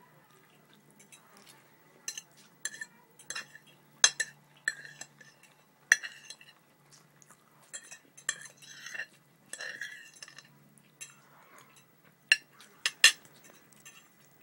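Cutlery clinking and scraping against a plate while someone eats, in irregular sharp clinks, a few of them ringing briefly.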